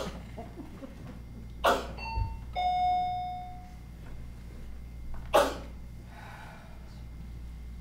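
Two-note door chime: a short higher ding, then a lower, longer dong that fades out. A short burst of noise comes just before the chime, and another about three seconds later.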